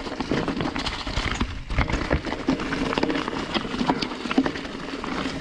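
Mountain bike rattling and clattering down a steep, rough dirt trail, with frequent sharp knocks as the wheels hit roots and rocks, over a steady low tone.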